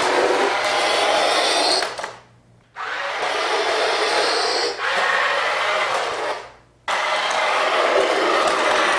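Battery-powered remote-control toy jet from Mattel's Disney Cars 2 line running with a loud, steady whir. It stops twice for under a second and then starts again.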